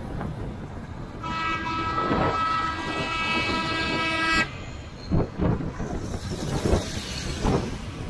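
A vehicle horn held for about three seconds, a steady multi-note blare that cuts off sharply, over road and wind noise. After it comes a few low thumps of wind on the microphone as a bus draws close alongside.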